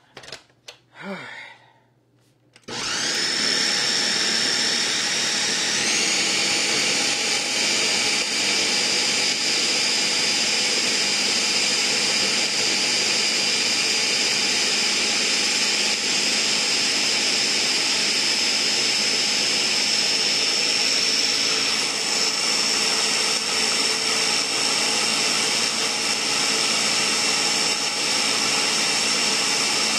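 A few light knocks, then a countertop blender starts about three seconds in and runs steadily, its motor whining high as it purées raw potatoes and onion into a smooth batter. The whine steps slightly higher about six seconds in.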